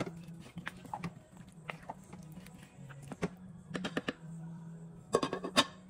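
Wooden spoon stirring potato chunks and carrots into thick beef stew in a slow cooker crock, with scattered light knocks and clicks of the spoon against the pot and a quick run of them near the end.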